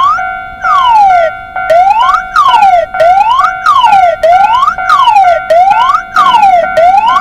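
Siren wailing, its pitch gliding up and down in turn about once a second, over a steady held tone.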